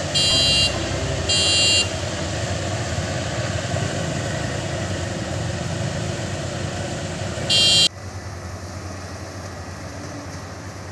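Maxxi Bimo 102 combine harvester running steadily while its electronic warning beeper sounds in short high-pitched beeps, about one every second and a bit in the first two seconds and once more about seven and a half seconds in. Just before the eight-second mark the sound changes abruptly to a quieter machine hum.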